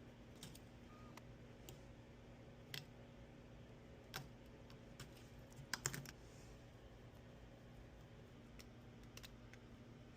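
Scattered small, sharp clicks and taps from handling tools and phone parts at the repair bench, including a quick run of several clicks about six seconds in, over a faint steady hum.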